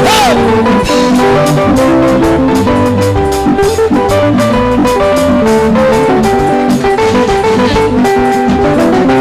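Live church band music: guitar lines over a drum kit, with a steady beat.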